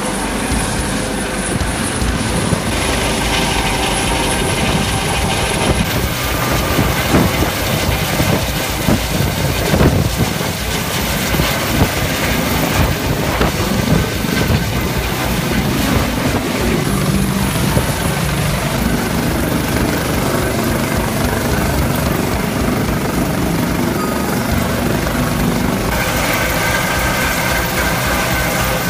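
Coast Guard rescue helicopter hovering close overhead: steady, loud rotor and engine noise.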